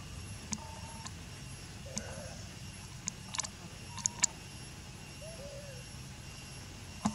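Outdoor background of a steady low rumble and faint high steady tones, broken by a handful of short, sharp clicks, the loudest about four seconds in and near the end. Between them come a few faint, brief rising-and-falling calls.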